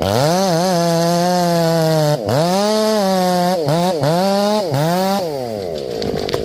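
Chainsaw engine running at high revs, its pitch dropping and climbing back several times, then winding down about five seconds in.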